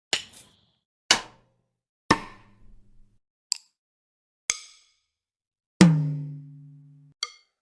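Drumstick strikes played one at a time, seven hits about a second apart with silence between. Most are short, sharp hits; the loudest, a little after the middle, rings on with a low hum for over a second.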